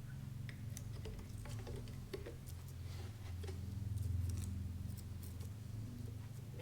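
Scattered light clicks and taps of small parts being handled during hand assembly work, over a steady low hum that swells slightly about four seconds in.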